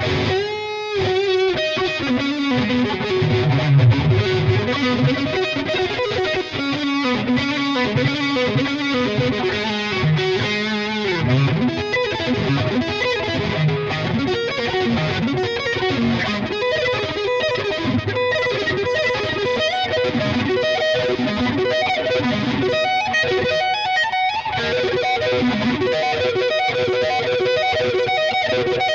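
Epiphone Les Paul Studio electric guitar played through distortion: fast lead lines, with bent and wavering notes in the first half.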